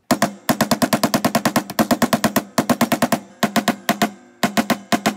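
Small hammer tapping rapidly on the end of a drill bit, driving a short brass tube down onto it to stretch the tube. The taps are sharp and ringing, about seven a second, in four quick runs with short pauses between.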